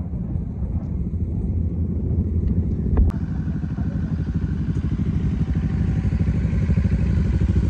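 Motorcycle engines running at low revs; about three seconds in the sound cuts sharply to bikes idling with a steady, even pulse that grows slightly louder.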